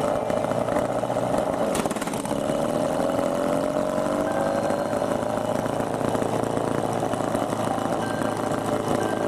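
Homemade prototype rotary engine running on a test stand, its speed slowly rising and falling. There is one sharp click about two seconds in.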